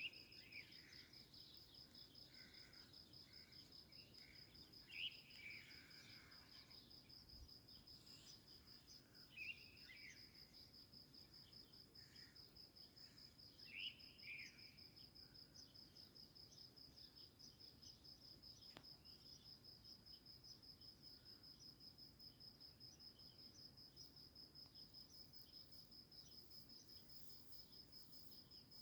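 Faint, steady high-pitched insect trilling, an even fast pulse that never stops, with a bird chirping briefly four times in the first half.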